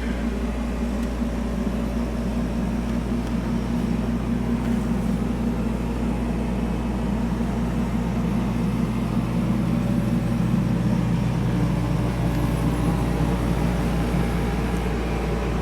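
Steady low machine hum running without a break.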